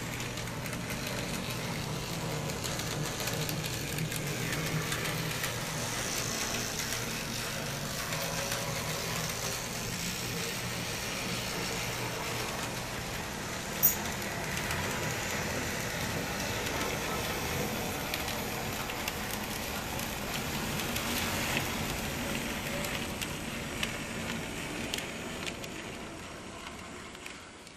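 N-scale model trams running on the layout's track: a steady running noise of their small motors and wheels on the rails, with a single sharp click about fourteen seconds in. The sound fades out near the end.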